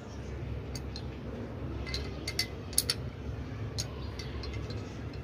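Small metallic clicks and clinks as the 9mm barrel of a Beretta 92FS pistol is worked back into its slide by hand, the sharpest two clicks about halfway through. A steady low hum runs underneath.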